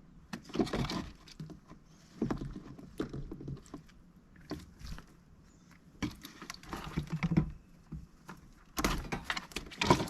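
Mallard duck splashing and dabbling with its bill in a water bowl, in about five short bursts of splashes and clicks with quiet gaps between.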